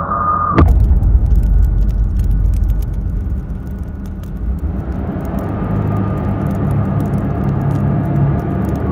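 A deep, steady rumble like a car running, starting abruptly about half a second in, with scattered faint clicks over it.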